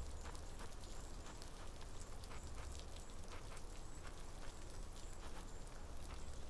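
Light rain falling steadily, with scattered faint, irregular taps of drops.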